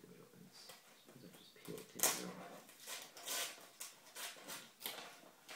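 Cardboard shipping box and packaging being handled and opened: a run of short rustling and scraping bursts, starting about two seconds in.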